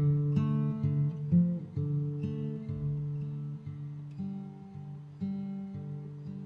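Music played on acoustic guitar: plucked notes and chords ringing out one after another, growing gradually quieter.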